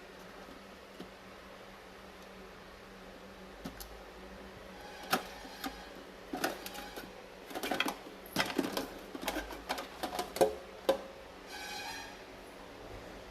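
Quiet room tone, then several seconds of irregular sharp clicks and knocks. A short pitched tone sounds near the end.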